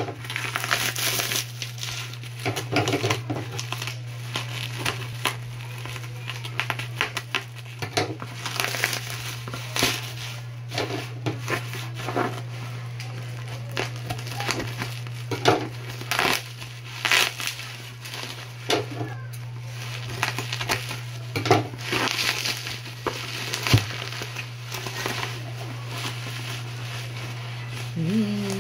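Bubble-wrap packaging crinkling and rustling in irregular bursts as it is handled and cut open with scissors, over a steady low hum.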